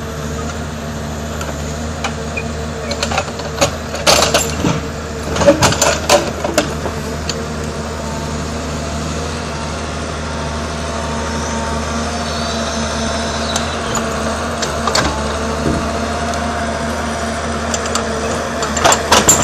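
Forestry forwarder's diesel engine running steadily while its hydraulic crane loads logs, with clusters of loud wooden knocks about four to seven seconds in and again near the end as logs strike the load.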